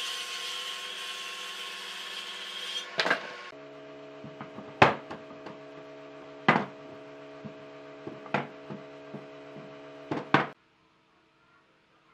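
Jointer (surface planer) running as a timber beam is fed across its cutterhead, a steady whine with hiss that stops about three seconds in. Then about six sharp wooden knocks, some in quick pairs, as a plank is handled against a timber block, over a steady low hum; all sound cuts off suddenly near the end.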